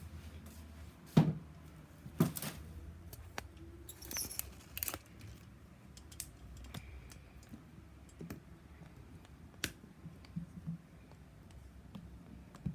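Handling noises as a camera is set up on a surface: scattered light clicks and knocks, the loudest about a second in and another about two seconds in, with a short rustle around four seconds.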